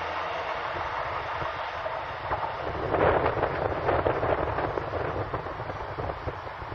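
Rail grinder train passing close by: a rumbling, rattling run of its wagons, with irregular knocks and clatter about three to five seconds in, mixed with wind buffeting the microphone.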